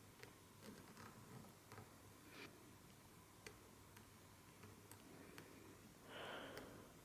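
Near silence: room tone with faint scattered small clicks and a brief soft rustle near the end.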